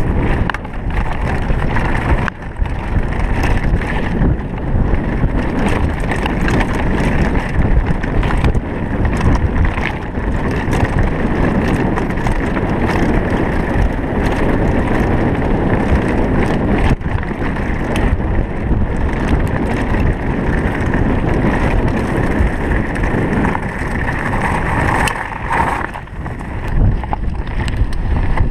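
Mountain bike riding fast over rough ground: tyres rumbling over stones and gravel and the bike rattling over bumps, with wind noise on the microphone.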